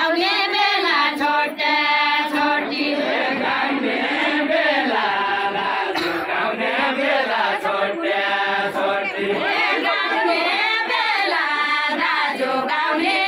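A group of women singing a Deuda folk song together, many voices in a chant-like melody that rises and falls without a break.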